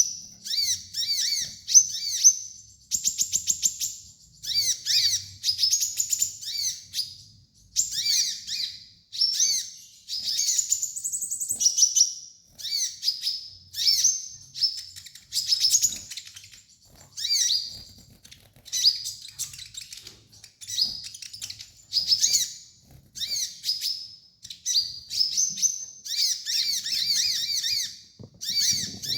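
Kolibri ninja sunbird singing: bursts of high, rapid chirping notes with quick slurs, each burst about a second long, repeating with brief pauses.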